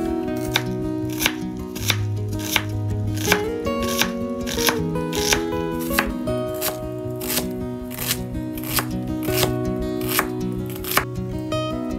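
Chef's knife dicing an onion on a wooden cutting board: crisp, evenly spaced strikes of the blade through the onion onto the board, about three every two seconds, stopping near the end. Background music plays underneath.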